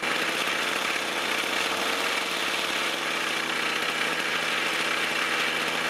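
Toro two-stroke string trimmer engine running steadily while the low-speed mixture screw on its carburetor is being adjusted.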